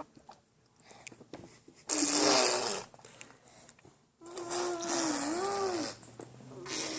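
A six-month-old baby blowing wet raspberries, sputtering and spitting through the lips: one loud splutter about two seconds in, then a longer sputter with the baby's voice humming through it from about four seconds in, and a short one near the end.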